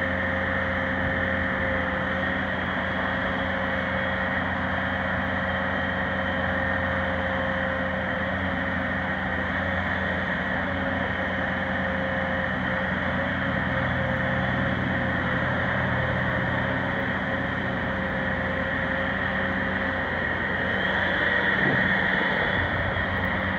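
Bobcat S650 skid steer's four-cylinder diesel engine running steadily, with a steady whine over the engine noise. It grows a little louder for a couple of seconds near the end.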